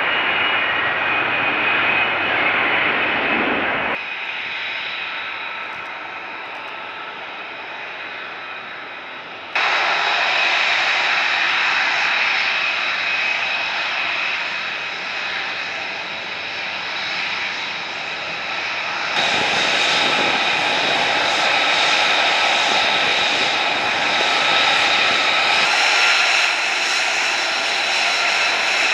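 F-35B Lightning II's F135 jet engine running, first as the jet hovers down for a vertical landing, then as it taxis. The sound is a rushing jet noise with a steady high-pitched whine. It changes abruptly in loudness and tone three times.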